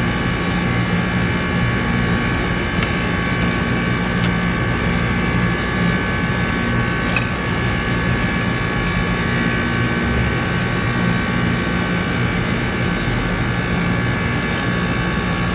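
Steady machine hum with several high, held whining tones over a low drone, unchanging throughout.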